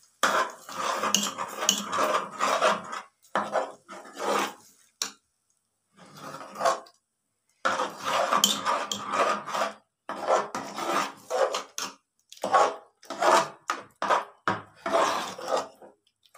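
Metal spoon stirring and scraping thick rice batter against the sides and bottom of an aluminium pressure cooker, in uneven strokes with short breaks and one longer pause around the middle.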